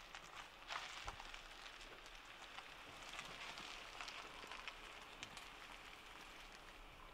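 Honda Pilot SUV reversing slowly, its tyres crackling faintly over gritty pavement with a steady hiss.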